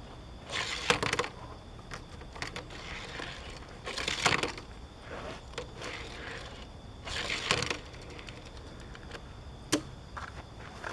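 A Hot Wheels blister package being handled and torn open: plastic and card crinkle and tear in three short spells, with a sharp click near the end.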